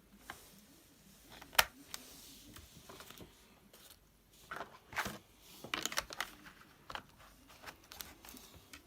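Handling sounds while working on a laptop's RAM: one sharp click about a second and a half in, then a quick run of clicks and light plastic rustling around five to six seconds, with a few scattered taps after that.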